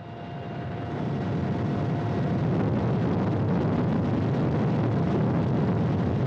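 Steady rumbling noise of a helicopter's rotor and engines heard from aboard the chase helicopter, fading up over the first second and a half and then holding even.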